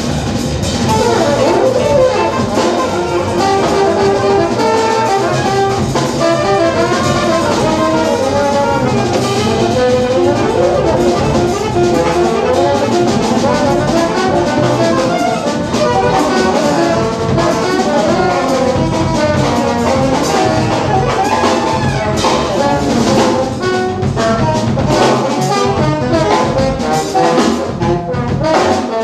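Live jazz quartet playing: trombone and saxophone lines over upright double bass and drum kit, with the drumming growing busier near the end.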